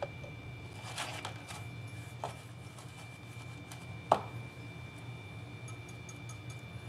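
A few knocks and taps as a wet iron caulking iron is handled and set down in a plastic tub. The loudest is a sharp knock about four seconds in. A steady low hum and a faint high whine run underneath.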